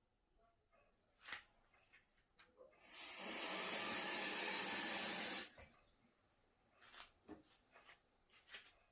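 Water tap running for about two and a half seconds, starting about three seconds in and shutting off sharply, with a few light clicks and knocks of handling around it.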